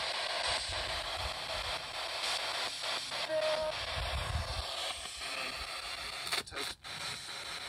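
Steady radio static hiss from a handheld radio device, with a short steady tone about three and a half seconds in and two brief cut-outs near the end.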